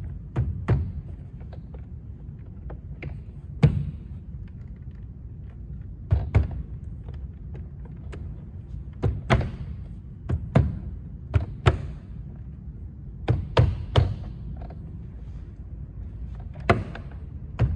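Irregular hand taps and thumps on a car's plastic interior door trim panel, one every second or two, as it is pressed and knocked down onto its clips, over a steady low hum.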